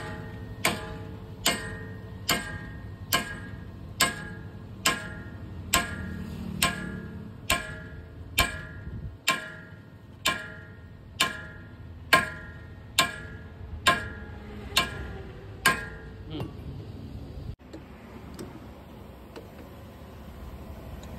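Hammer blows on steel, driving new wheel bolts into a truck's wheel hub in place of bolts that sheared off. The blows are steady, about five every four seconds, each with a short metallic ring, and they stop about 16 seconds in.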